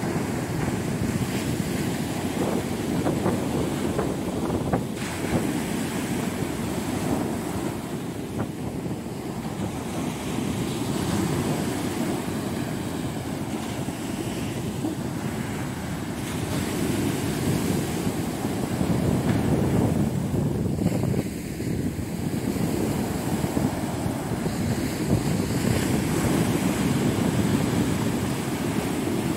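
Sea surf breaking on a beach, a continuous rush that swells and eases as waves come in, with wind buffeting the microphone.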